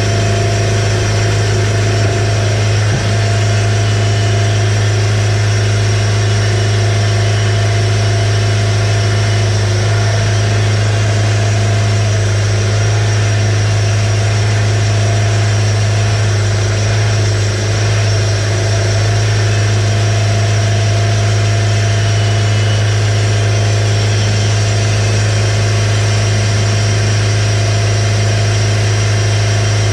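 Wood-Mizer bandsaw mill's engine running steadily at a constant speed, with a strong low hum.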